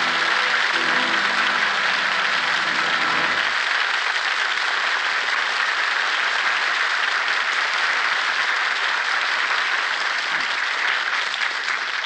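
Studio audience applauding steadily at the act break, over the last held chord of the closing music, which dies away about three and a half seconds in.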